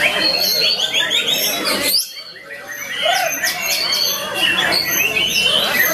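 White-rumped shama (murai batu) singing a fast, varied song of whistles and sharp rising and falling notes, with a brief pause about two seconds in.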